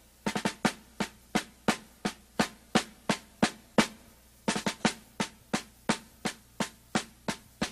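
A drum beat with no other instruments: sharp, evenly spaced hits, about three a second, with quick clustered hits near the start and again about halfway through.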